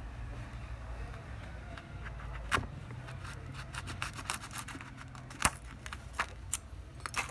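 Scattered sharp clicks and light scraping of a repair tool working on a OnePlus 7 phone, the loudest clicks about two and a half and five and a half seconds in, over a low steady hum.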